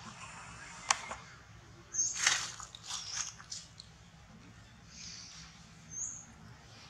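Dry leaf litter crackling and rustling as macaques move about, with a sharp click about a second in and a burst of crackles around two seconds in. A brief high chirp sounds near the end.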